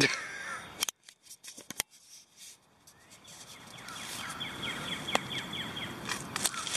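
Rustling and scraping of damp leaf litter and wood being pulled back by hand, with a few sharp clicks early on. It grows louder in the second half, where a faint steady high tone runs underneath.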